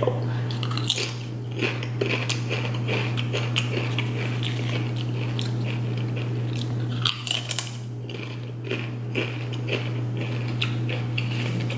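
Close-miked crunching and chewing of Doritos tortilla chips: many sharp crackles as the chips break between the teeth, over a steady low hum.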